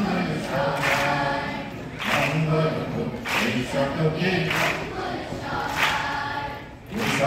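A large choir of children and teenagers singing together, in short phrases about a second long.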